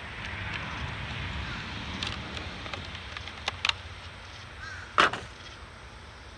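Hands opening a plastic fishing-lure package: rustling, then a few sharp clicks and snaps, the loudest about five seconds in.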